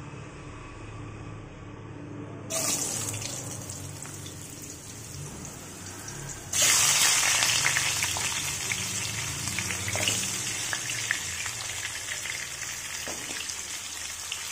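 Potato wedges sizzling as they fry in hot oil in a wok. The sizzle rises about two and a half seconds in, turns much louder about six and a half seconds in, then slowly eases.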